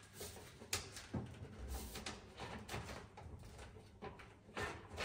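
A 110 mm plastic soil pipe being pushed down into the rubber ring-seal socket of a push-fit fitting: a few faint scrapes and knocks of plastic on plastic.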